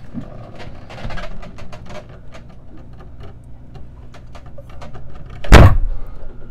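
A hinged wooden step hatch being lowered shut, with scattered knocks and clicks of handling on wood. About five and a half seconds in comes a single loud thump.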